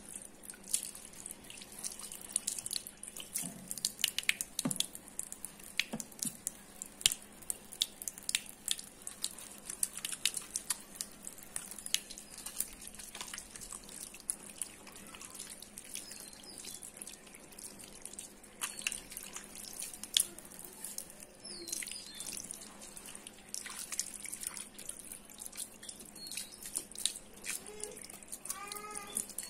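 Thin stream of tap water splashing into a ceramic washbasin as hands are rinsed and rubbed under it, with a steady patter of small splashes and drips.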